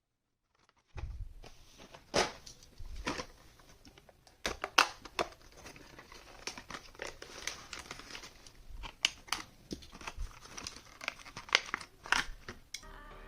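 Hot Wheels diecast car packaging being torn and opened by hand. The plastic and card crinkle and crackle, with irregular sharp clicks and snaps, starting about a second in.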